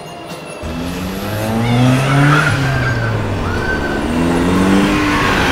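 Small engines of amusement-park go-karts revving up and down as the karts drive, with several engines at different pitches and a short tyre squeal about two seconds in.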